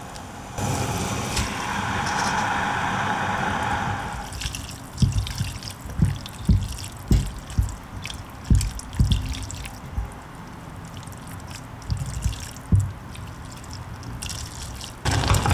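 Broth in a saucepan stirred with silicone chopsticks, dripping and sloshing as noodles and shredded chicken are moved and lifted. A steady rushing liquid sound runs for about three and a half seconds near the start, then scattered soft knocks.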